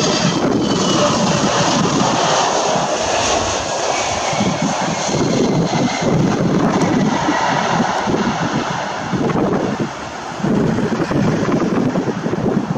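Airbus A320-family jet airliner's engines during landing and rollout: a loud, steady rushing roar that briefly dips about ten seconds in.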